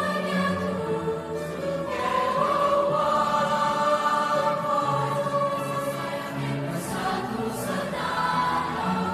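Mixed-voice secondary-school choir singing long, held chords, the harmony shifting every second or two.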